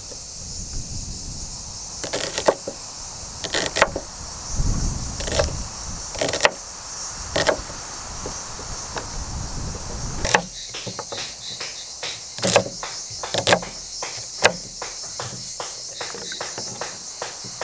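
Chef's knife cutting an onion on a wooden cutting board: single knocks of the blade on the board about once a second, then from about ten seconds in a quicker run of chops, several a second. Steady cricket chirring underneath.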